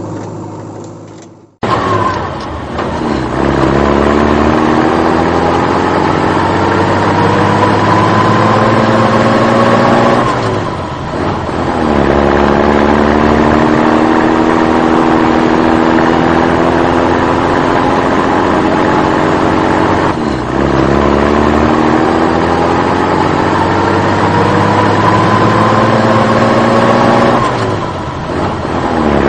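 Vehicle engine accelerating in long rising sweeps: the pitch climbs steadily for about eight seconds, drops back, and climbs again, three times over, with a steady low hum underneath.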